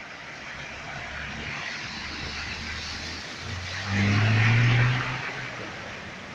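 A car drives through deep floodwater and passes close by. A steady rush of water is heard throughout. The engine note rises and the splash of the tyres pushing through the water swells to its loudest about four seconds in, then fades as the car moves away.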